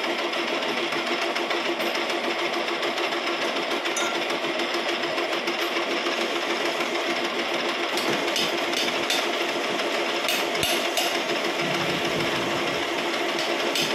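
Metal lathe running steadily with a constant hum, its chuck spinning a metal workpiece while a turning tool machines the end face. Scattered light ticks come through in the second half.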